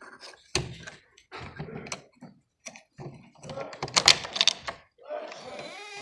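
Screwdriver working inside a door lock's broken-out cylinder, making irregular metal clicks, knocks and scrapes as it turns the lock mechanism. There is a sharp knock about half a second in and a dense run of loud clicks about four seconds in, then a smoother, continuous scraping sound near the end.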